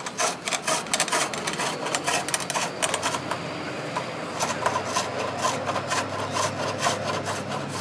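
A turning gouge cutting rough wood stock on a spring pole lathe, in a run of short scraping cuts as the treadle spins the work back and forth. This is the roughing-down stage, taking the stock to a cylinder.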